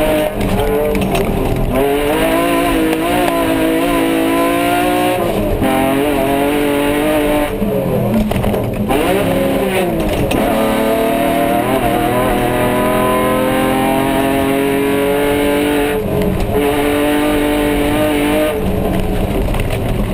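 Off-road race car's engine, heard inside the cabin, revving hard and running flat out, its pitch climbing and dropping back again and again through gear changes, with a brief lift-off and a dip and rise in revs about eight seconds in. A steady rush of tyre and gravel noise runs under it.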